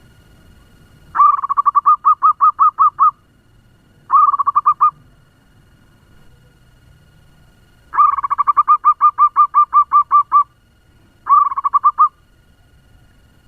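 Zebra dove (perkutut) calling in four quick bouts of rapid, evenly repeated cooing notes, about five a second.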